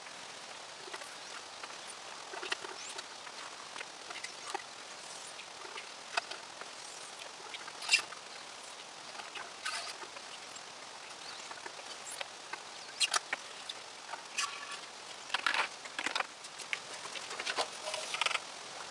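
Scattered small clicks, scrapes and short scratchy bursts of plastic handling as a hand suction syringe is worked in a small petrol engine's fuel tank to draw out old fuel. There is one sharp click about eight seconds in, and the sounds come thicker near the end.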